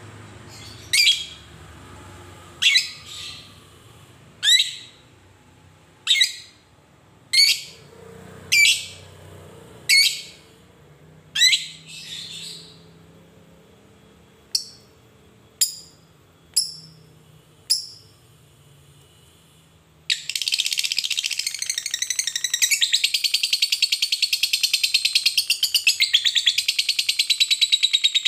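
Fischer's lovebird singing. First comes a string of single sharp chirps about every second and a half, then a few shorter, quicker ones. About two-thirds of the way in it breaks into a long unbroken rapid chatter: the 'ngetik' chirps running into the 'ngekek' trill of a fighter lovebird.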